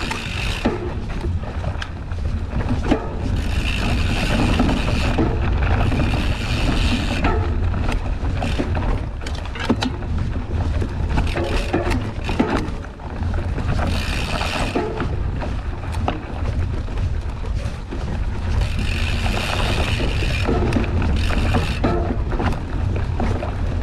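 Mountain bike riding over a dirt trail, picked up by a camera on the bike's seatpost: a steady low rumble with rattling and small knocks from the bike and tyres, and four stretches of hiss a second or two long.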